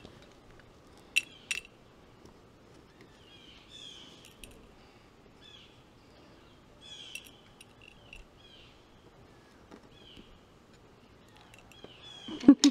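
A bird chirping in short, repeated calls. There are two sharp clicks about a second in, and a brief loud burst near the end.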